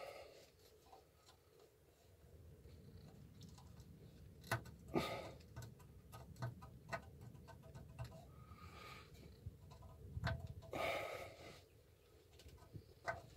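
Rusted steel oil pan of a Subaru EJ25 engine being wiggled by hand to work it free: faint, scattered clicks, light knocks and brief scrapes as it shifts against the engine. The pan is catching on something, probably the oil pickup.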